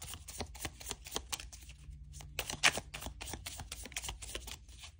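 Tarot cards being shuffled and handled to draw a clarifier card: a rapid, irregular run of soft flicks and clicks, with a brief lull about two seconds in.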